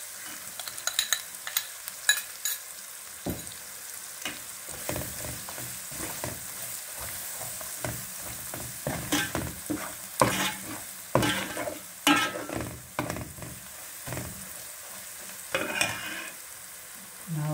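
Onions and whole spices sizzling in hot oil in a metal pot, with a steel spoon scraping and clinking against the pot in several bouts of stirring as chili powder is worked into the frying masala.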